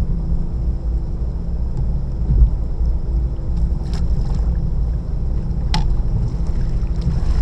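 Electrofishing boat's motor running with a steady low rumble and a faint steady high whine, broken by two sharp clicks about four and six seconds in.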